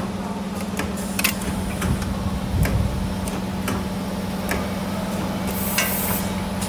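CNC spring forming machine running as it bends steel wire into car seat springs: a steady machine hum under irregular clicks and knocks of the forming tools, with a short hiss near the end.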